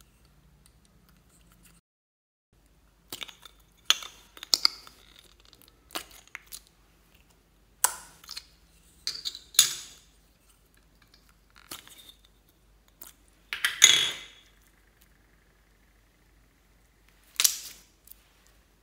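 Plastic squishy toys filled with gel beads being handled over a glass bowl of slime: a string of about a dozen sharp clicks and knocks, the loudest about fourteen seconds in, after a near-silent first three seconds.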